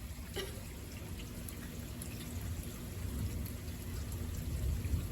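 Rain falling and dripping during a thunderstorm, with a low rumble that grows louder toward the end.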